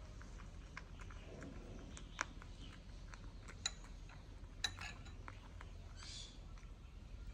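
A metal spoon clinking against a bowl as food is scooped: three sharp clinks about a second apart, the later two briefly ringing, among fainter small ticks.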